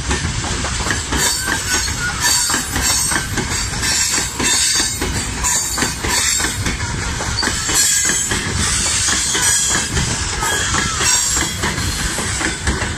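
Freight train of open gondola wagons rolling past close by: a steady rumble of wheels on rail with rapid clicking over the rail joints and now and then a high wheel squeal.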